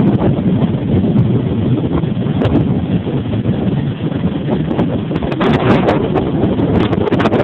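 Heavy surf: big waves breaking and washing over a pier, with strong wind buffeting the microphone and crackling in the second half.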